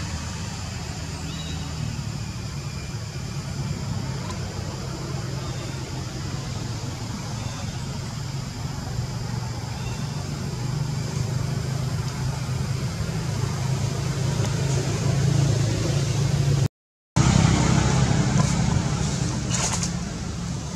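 Steady low drone of an engine running, which cuts out for a moment near the end.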